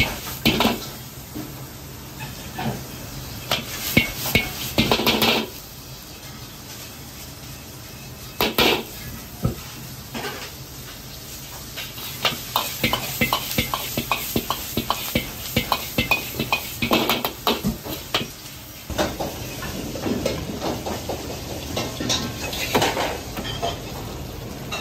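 Stir-frying in an iron wok: a metal ladle clanks and scrapes against the wok many times as duck tongues and dried chillies are tossed, with bursts of sizzling.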